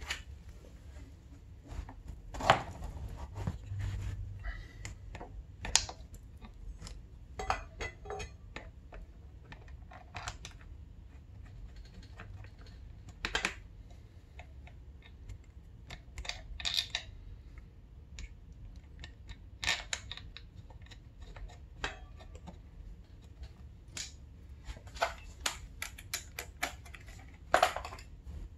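Irregular clicks and light taps, with a few sharper knocks among them, from handling a dirt bike's front brake caliper and brake hose as they are fitted to the fork leg.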